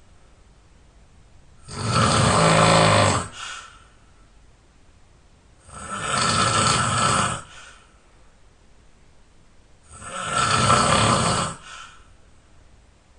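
A person snoring loudly: three long snores about four seconds apart, each ending in a short fainter trailing sound, with quiet breathing between them.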